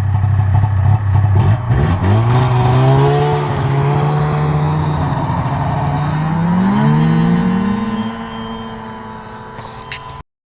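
A motor vehicle's engine revs up as it pulls away across the ice, holds steady, climbs again about seven seconds in, then fades as it drives off. The sound cuts off abruptly near the end.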